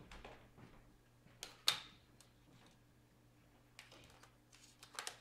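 A few light clicks and taps from coloured pencils and paper being handled on a desk, the sharpest about a second and a half in with a short ring after it.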